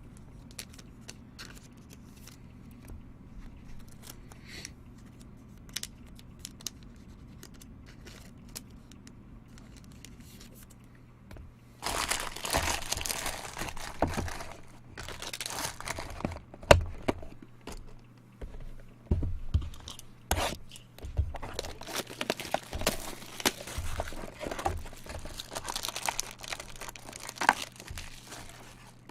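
Plastic and foil trading-card packaging being torn open and crinkled by hand, the wrappers of baseball card packs or boxes. Faint handling clicks at first, then from about halfway in a long run of loud tearing and crinkling with one sharp knock.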